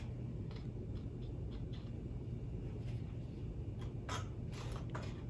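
Steady low hum of room tone with a few faint scattered clicks and taps, several of them close together near the end.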